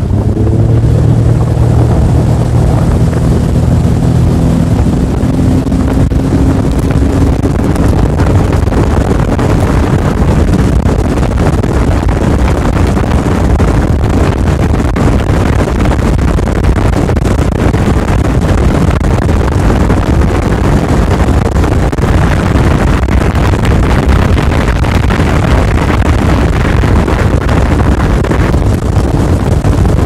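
2018 Suzuki 25 hp four-stroke outboard being opened up to full throttle. Its pitch rises over the first several seconds, then it runs steady at speed under a loud rush of wind and water.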